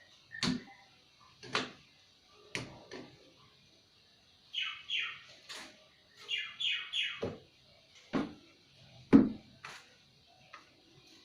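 A series of separate knocks, with two runs of quick, falling squeaky chirps between them.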